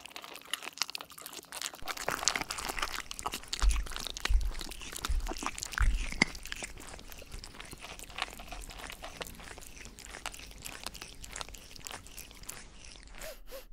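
A very young kitten crunching and chewing dry kibble from a small ceramic dish: irregular small crunches and clicks, with a few soft low thumps in the middle.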